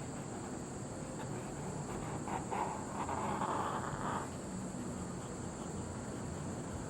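Pen or pencil scratching in drawing strokes across a surface, strongest for a couple of seconds mid-way, with a few light ticks, over a steady hiss.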